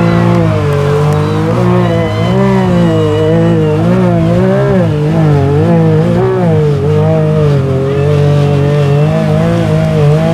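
Mud-bog truck's engine running at high revs, its pitch swinging up and down again and again as the throttle is pumped, typical of a run through deep mud.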